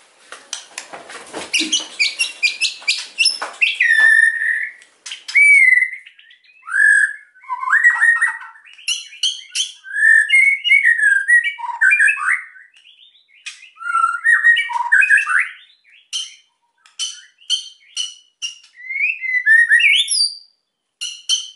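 White-rumped shama (murai batu) in full aggressive song: it opens with a burst of rapid harsh crackling notes (kretekan), then loud, varied whistled phrases that slide up and down, broken by quick clicking and ticking runs.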